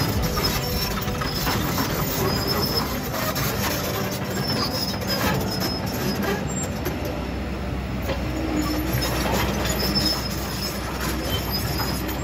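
Kobelco SK200 hydraulic excavator working, its engine running with a steady low rumble under repeated short high squeals and scattered metallic knocks.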